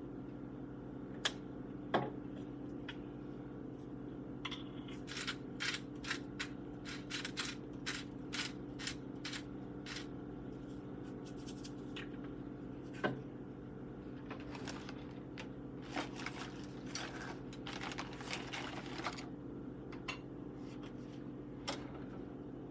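Grilled cheese sandwich frying in butter in a pan: irregular light crackles and ticks over a steady hum, the crackles thickest through the middle.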